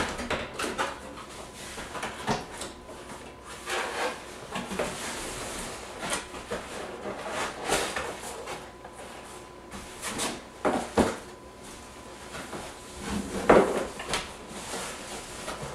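Cardboard box being opened and unpacked by hand: flaps pulled open and inner cardboard packing lifted out, with repeated rubbing, rustling and knocks of cardboard, a few sharper knocks among them.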